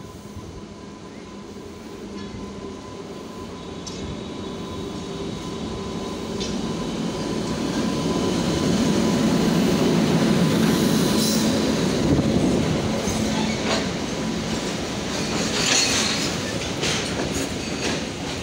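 Freight train hauled by an Indian Railways WAG-9 electric locomotive, approaching and passing close by. The rumble grows steadily louder and is loudest about nine to twelve seconds in as the locomotive goes past. After that, loaded open wagons roll by, with repeated clicks of wheels over rail joints.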